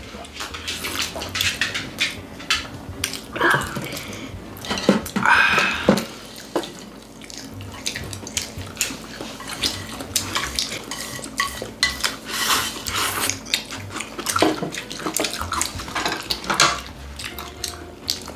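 Eating sounds at a dinner table: metal chopsticks and spoons clicking and clinking against plates and bowls, with chewing and slurping of food and drink.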